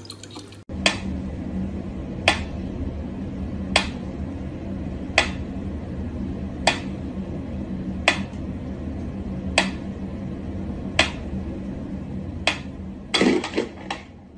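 Mechanical pendulum metronome ticking slowly and evenly, one sharp tick about every second and a half, over a steady low hum, with a brief louder sound near the end.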